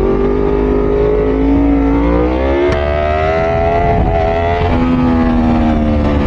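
Yamaha R1 sportbike's inline-four engine under hard acceleration. It climbs in pitch, drops at an upshift about two and a half seconds in, and climbs again through a wheelie. Near the end it eases off and holds steady, with wind rushing over the helmet microphone.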